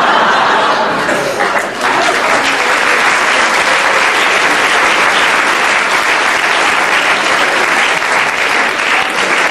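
Live audience applauding steadily in response to a punchline.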